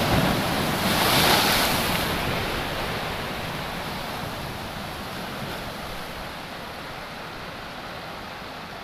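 A sea wave breaking against shoreline rocks, loudest about a second in, then the surf washing over the rocks and slowly fading.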